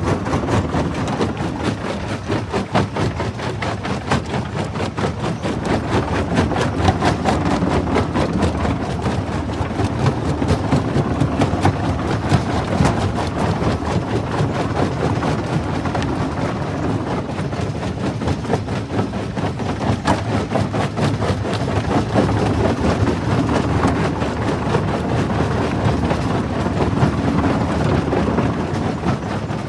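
Jaw crusher running and crushing stone: a steady heavy machine rumble with dense, continuous cracking and crunching of rock throughout.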